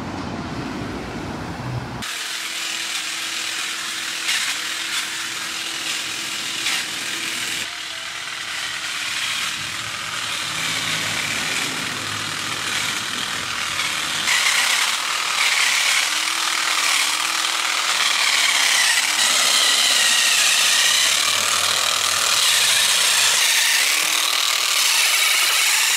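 Powered hedge trimmer running as it cuts a hedge, its motor pitch wavering and dipping under load. The sound shifts abruptly a few times.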